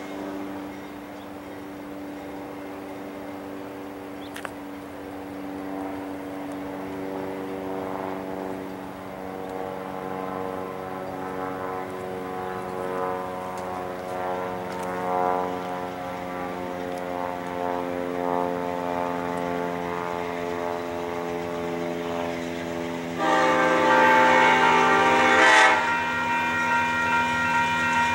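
Approaching diesel locomotive's air horn, sounded in long, drawn-out blasts from a distance and growing louder, with a louder two-second blast about 23 seconds in.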